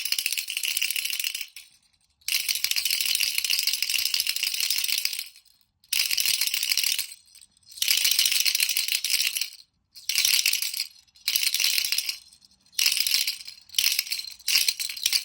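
Baby rattle toy shaken in spells with short pauses, a long spell of a few seconds near the start, then shorter and shorter shakes toward the end.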